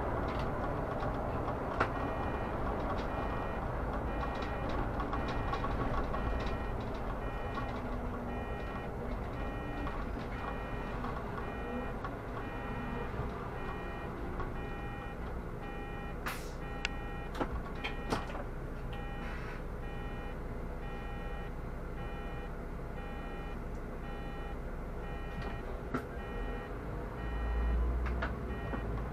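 Interior of a Solaris Urbino 18 articulated city bus: a steady low running hum, with a repeating electronic warning beep sounding over and over. A few sharp knocks come about halfway through.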